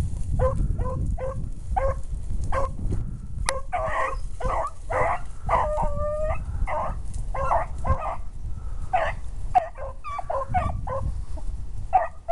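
Beagles baying on a rabbit's scent line: a run of short, quick barks about three or four a second, with one longer drawn-out bay about six seconds in, over a low rumble.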